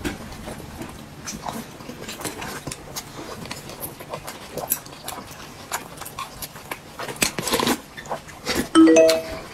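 Eating sounds: chewing, lip smacks and small clicks as a steamed dumpling is bitten and noodles are picked up with chopsticks. A louder breathy sound comes about seven seconds in, and a brief pitched tone near the end.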